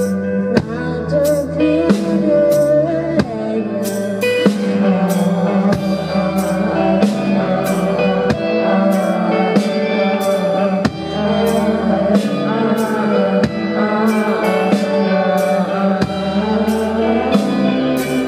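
Live band playing a song, with a drum kit keeping a steady beat over bass and guitar.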